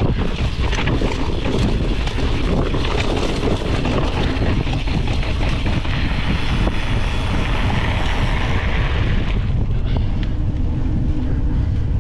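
Wind buffeting the microphone of a riding mountain biker's action camera. It makes a steady, heavy rumble with a hiss over it.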